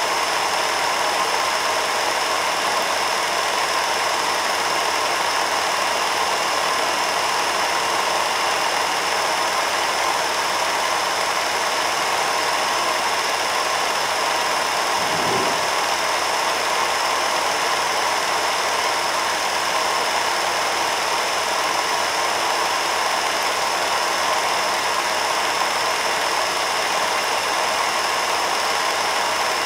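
Film projector running steadily, a continuous mechanical whir, with a brief low thump about halfway through.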